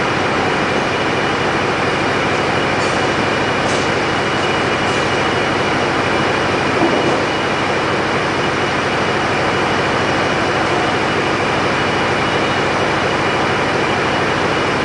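Truck-mounted mobile crane running steadily during a heavy lift: a constant, even mechanical noise with a faint steady high whine.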